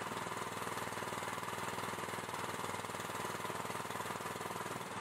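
Hydraulic power pack's small engine running steadily with a fast, even pulse, powering the CPT pusher unit as it drives the cone rod into the ground.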